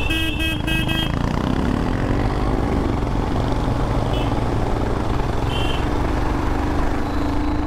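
A vehicle horn in a few quick toots in the first second, then the steady running of a Royal Enfield Himalayan's single-cylinder engine with wind rush as the motorcycle rides uphill alongside a bus, with two brief toots later.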